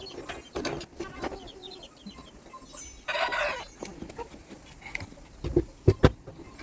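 Chickens clucking, with a louder call about three seconds in, and a few sharp knocks near the end.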